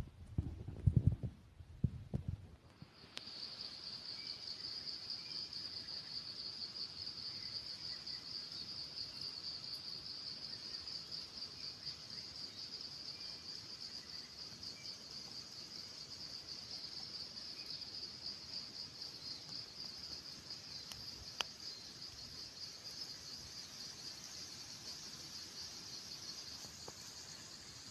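A few low thumps, then about three seconds in a steady, high-pitched insect trill starts, rapidly pulsing, and holds on; a single short click comes about two-thirds of the way through.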